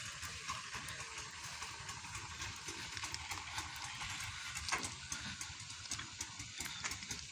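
Footsteps crunching on railway track ballast, a steady run of short gravel crunches over a low rumble.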